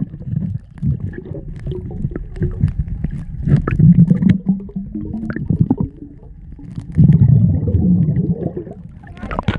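Underwater sound on a submerged camera: muffled rumbling of water and bubbles moving around the microphone, with scattered clicks. It swells louder about three and a half seconds in and again around seven seconds.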